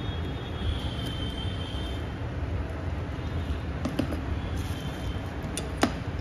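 A few sharp clicks and taps of metal heating-platform plates being handled and set down on a table, the loudest just before the end, over a steady low background rumble.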